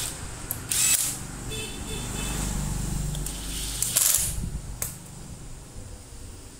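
Cordless drill-driver running for about two seconds with a low, steady motor drone as it drives a screw into a standing fan's motor housing. Short clatters of the metal housing being handled come just before and after it, with a single click about a second later.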